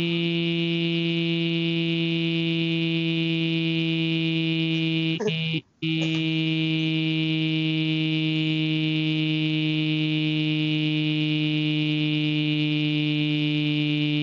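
Eloquence text-to-speech voice holding one long, unchanging synthesized note. It cuts out for a split second about five and a half seconds in, then carries on at nearly the same pitch.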